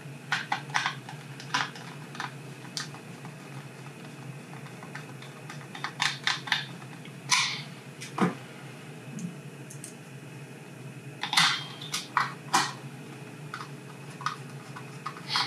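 Irregular small clicks and taps of a Torx screwdriver and small screws against a plastic hand-control housing as hold-down screws are fitted and driven in. A few sharper clicks come about halfway through and again later on.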